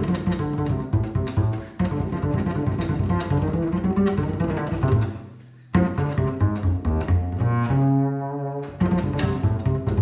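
Instrumental background music with a low bass line under quick, changing notes; it fades almost away about five seconds in, then starts again.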